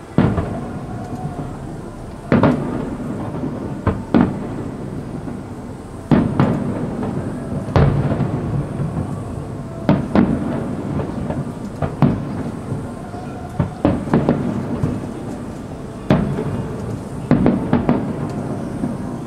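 Fireworks display: aerial shells bursting in a series of booms, about one every two seconds and coming closer together near the end, each followed by a rumbling echo.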